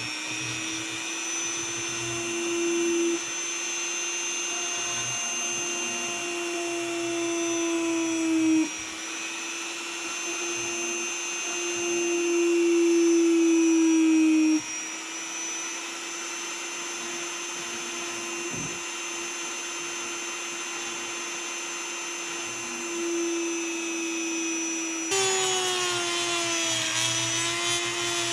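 Handheld rotary tool running at high speed, its bit grinding into a plastic interior trim panel to cut an opening. A steady high whine that jumps in pitch and level a few times.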